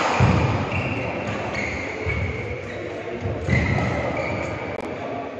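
Badminton play in a large hall: a sharp crack of a racket hitting a shuttlecock at the start, short high squeaks of court shoes on the floor, and three dull thuds of footwork.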